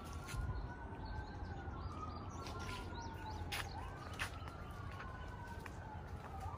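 A siren wailing, its pitch sliding slowly up and down, with sharp clicks now and then over a low rumble.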